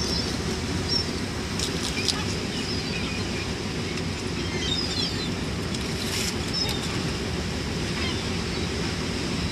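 Fishing boat's engine and sea noise running steadily, with gulls calling in short high cries over it.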